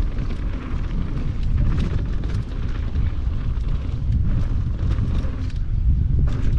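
Wind buffeting the microphone of a downhill mountain bike (GT Fury) descending a loose dirt and gravel trail at speed, a steady heavy rumble. Tyres crunch over stones, with frequent sharp clicks and rattles from the bike and gravel.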